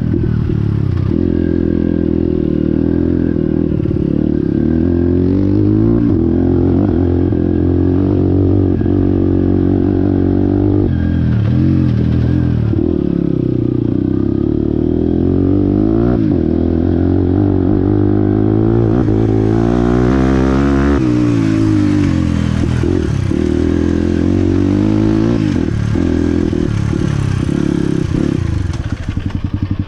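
Motorcycle engine running under way, its pitch rising and falling repeatedly as the throttle is opened and closed through gear changes. A steady hiss joins about two-thirds of the way through and drops away near the end.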